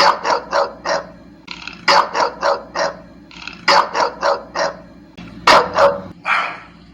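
French bulldog barking in quick runs of three to five barks, with short pauses between the runs.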